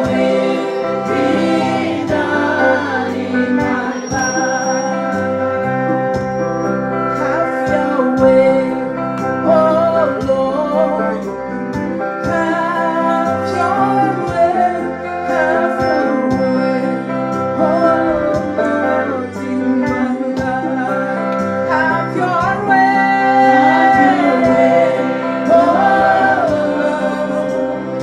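Women's choir singing a gospel song over instrumental accompaniment with sustained bass notes.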